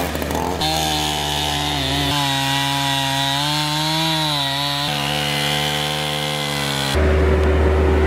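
Stihl MS271 two-stroke chainsaw running at high speed through a fallen tree trunk, its pitch dipping and rising as the chain takes the load. About seven seconds in it gives way to the lower, steady running of a Bobcat skid-steer loader's engine.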